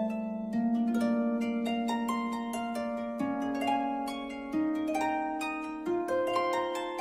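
Background music: a melody of plucked notes over long held low notes that step upward every second or so.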